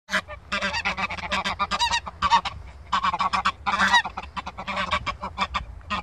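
A group of white domestic geese honking and cackling in quick, overlapping calls, with a couple of longer, louder honks about two and four seconds in.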